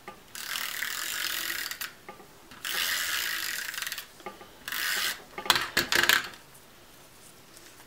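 Tape runner drawn along paper three times, each stroke a rasping, ratchety whir, the first two long and the third short. A few sharp clicks of handling follow.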